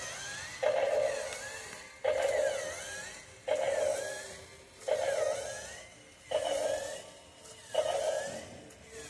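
Remote-control Godzilla toy walking, making the same sound six times at an even pace about a second and a half apart. Each sound starts suddenly and fades, with a dipping, rising tone.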